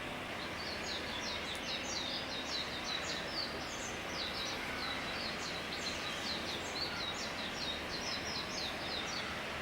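Common kingfisher calling: a long, rapid run of short high-pitched chirps, about four or five a second, stopping near the end, over a steady background of outdoor noise.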